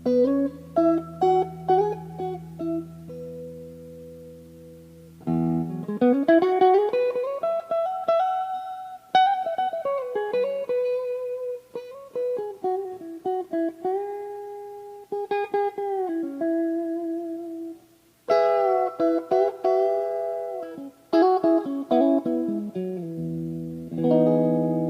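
Greco WS-STD electric guitar played clean: a low chord rings and fades, then single-note lead lines with string bends and slides and short picked runs, and another low chord is struck near the end.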